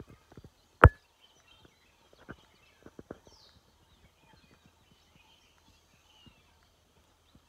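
Scattered clicks and knocks of a handheld phone being moved about and footsteps, with one sharp, much louder knock just under a second in. Faint bird chirps sound behind.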